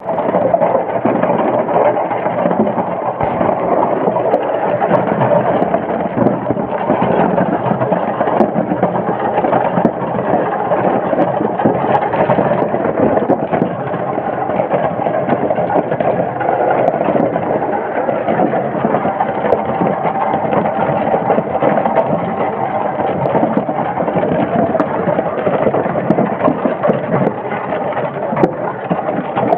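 Ice machine running with a steady mechanical drone.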